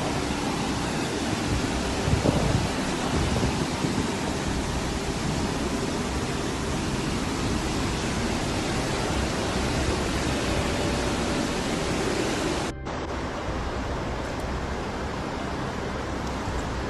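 Flash floodwater rushing down a street, a loud, steady rush of water. About thirteen seconds in it breaks off and gives way to a slightly quieter steady rush.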